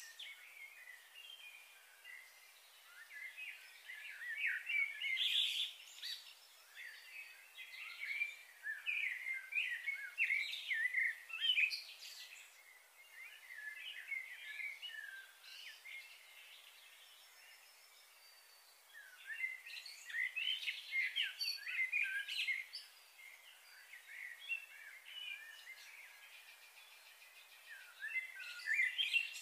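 Small birds chirping and twittering in several bouts of quick, high notes, with lulls between.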